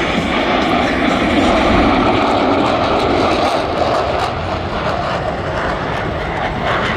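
Jet roar of Blue Angels F/A-18 Super Hornets flying past, a loud, steady rushing sound that is strongest around two seconds in and then eases off a little.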